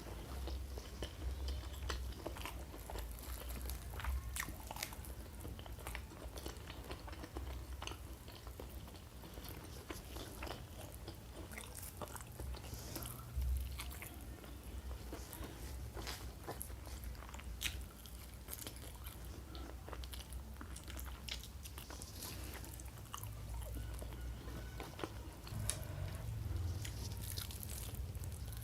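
Close-miked eating: steady chewing and biting, with many small crisp crunches and mouth clicks scattered throughout.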